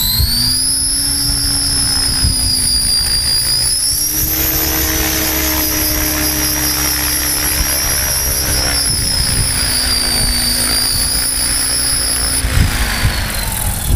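HobbyKing HK 600GT electric RC helicopter on a 6-cell pack, its motor whining high and steady as the rotor finishes spooling up and it lifts into a hover. The whine steps up in pitch about four seconds in and cuts off shortly before the end.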